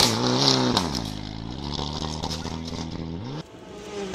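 Rally car engine revving up and down several times, then falling about a second in to a lower, steady running note. Near the end the sound cuts off abruptly to a fainter engine further away.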